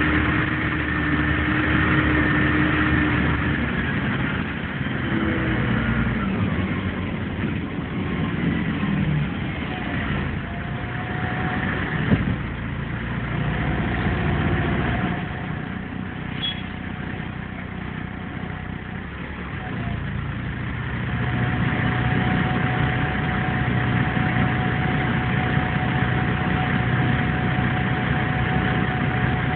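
Scania N113 bus's diesel engine heard from inside the passenger cabin. Its pitch shifts and falls over the first several seconds, then it settles to a steady idle for the second half, with a single sharp knock about twelve seconds in.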